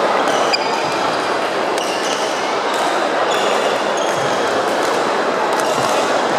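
Badminton play in a busy sports hall: racket strikes on the shuttlecock and short squeaks of shoes on the wooden court, over a steady din of many voices and play from other courts.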